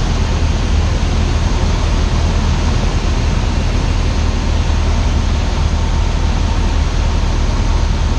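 Cessna 172 Skyhawk's piston engine and propeller droning steadily in flight, heard inside the cabin as a constant low hum under a wash of airflow noise.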